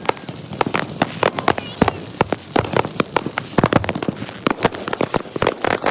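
Consumer fireworks and firecrackers going off in a dense, irregular barrage of rapid pops and bangs, sped up to three times normal speed.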